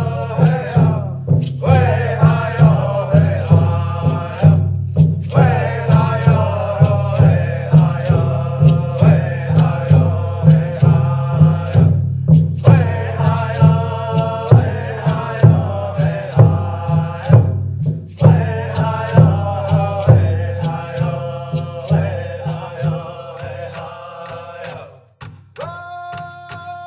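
Music: voices chanting a song over a steady drum beat, a little more than one beat a second. The drumming falls away near the end.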